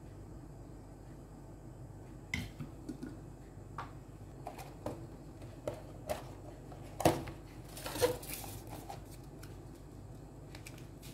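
Small objects being handled: a scattered run of short clicks and knocks after a quiet start, with two louder knocks past the middle, the second followed by a brief rustle.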